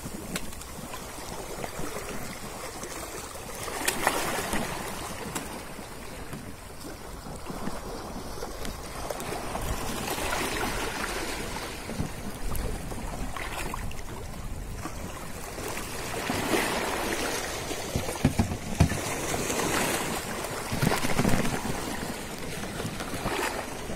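Shallow seawater splashing and sloshing as someone wades through it, in uneven surges every few seconds, over a steady wash of small waves.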